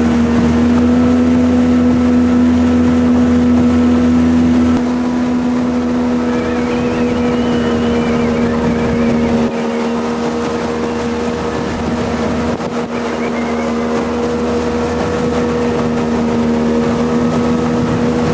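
Jet boat engine running at a steady speed, one even droning note with water and wind hiss underneath. The level drops a little about five seconds in, with a brief dip near ten seconds.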